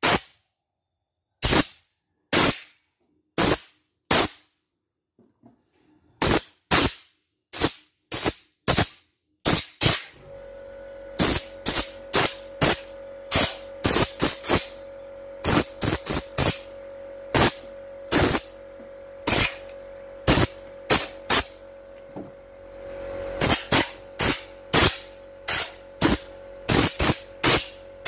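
Aerosol cleaning spray fired in many short, sharp puffs, often about two a second, into the mechanism of an embroidery machine. A faint steady hum joins about ten seconds in.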